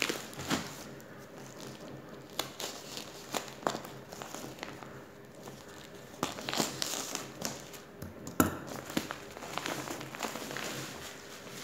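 Black plastic courier bag crinkling and rustling as it is handled, with scattered clicks and one sharp, loud tap about eight seconds in.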